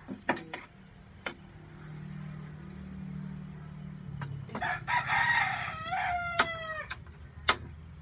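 A rooster crows once, about five seconds in: one long call whose pitch drops at the end. Sharp clinks of a spatula against the cooking pan sound before, during and after it.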